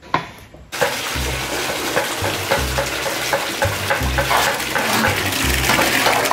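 Tap water pouring hard into a plastic basin while hands rub and swish pig offal in the water. It starts suddenly under a second in, with a low thump about every second and a half beneath the splashing.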